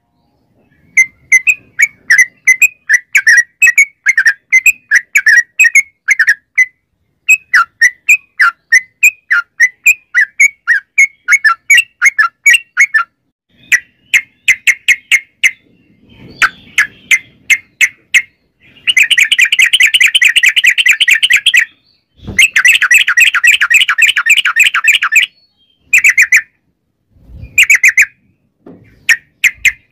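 Yellow-vented bulbul singing fast chattering phrases of rapidly repeated notes. About two-thirds of the way through, the notes run together into two long unbroken rolls.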